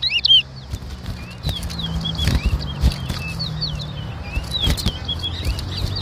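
Caged towa towa finches singing in a song contest: short slurred whistled notes at irregular intervals, loudest in the first half second, with a few sharp clicks, over a steady low hum.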